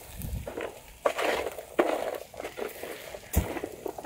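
Cashew nuts roasting in a metal pan over a wood fire, crackling and sputtering irregularly as the oily shells catch fire, with a sharp snap near the end.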